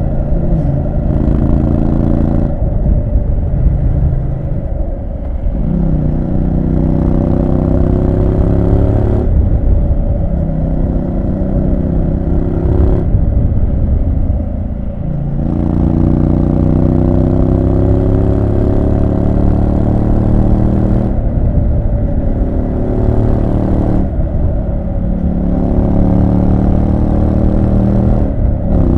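Triumph Street Scrambler 900's parallel-twin engine under way. It pulls with the pitch climbing slowly, then the throttle closes or the gears change and the pitch drops or breaks, about seven times over.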